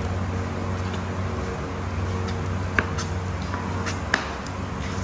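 Kitchen knife cutting boneless chicken breast on a plastic cutting board: a few sharp taps of the blade striking the board, the two loudest near the middle and about a second later, over a steady low hum.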